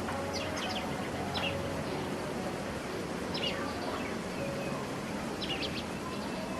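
Small birds chirping, a few quick high notes at a time every second or two, over steady outdoor background noise.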